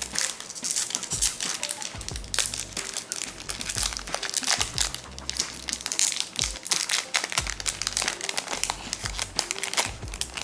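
Foil trading card pack being torn open and crinkled by hand, its wrapper crackling in quick, irregular bursts.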